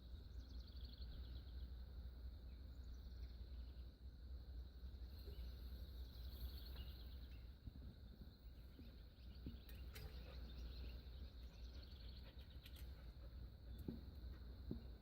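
Faint outdoor ambience: a steady low rumble with faint, repeated high chirping and trilling of birds.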